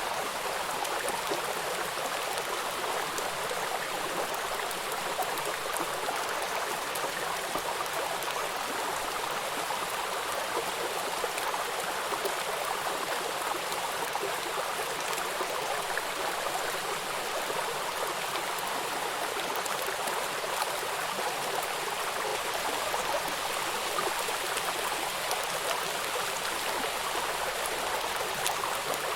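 Rain falling steadily: an even hiss of many small drops, with no change in strength.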